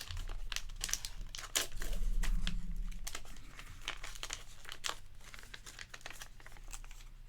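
Plastic packaging of a trading card box being torn open and crinkled by hand: irregular crackling and tearing, a little louder about two seconds in.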